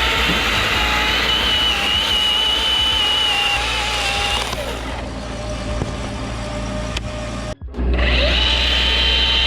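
Battery-powered Milwaukee electric chainsaw cutting into maple wood with a steady high whine. Its pitch and level sag about halfway through, it cuts out abruptly for a moment, then it comes back at full speed near the end.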